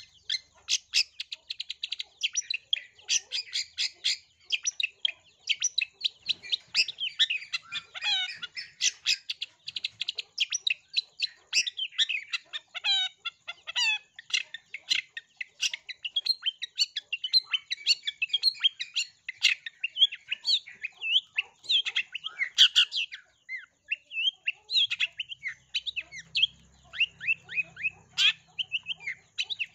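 Long-tailed shrike singing a fast, unbroken stream of short chirps and sweeping notes, its song packed with mimicked calls of other birds.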